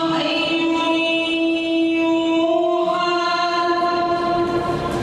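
A male Quran reciter chanting in melodic tajweed style, holding one long drawn-out note with a slight change in tone about three seconds in.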